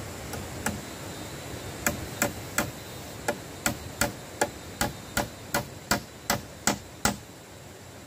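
Hammer blows, a steady run of about fourteen sharp strikes at close to three a second, after a couple of lighter taps.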